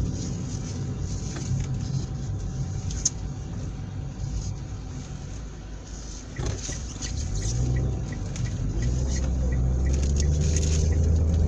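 A car running, heard from inside the cabin: a steady engine and road rumble that grows louder and deeper over the last few seconds. Partway through comes a run of regular light ticks, about two a second.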